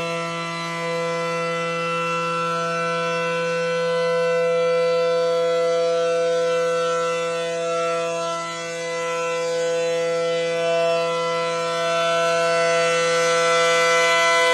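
Tornado siren sounding a steady tone, a chord of several pitches held level throughout, with its loudness swelling and dipping slightly.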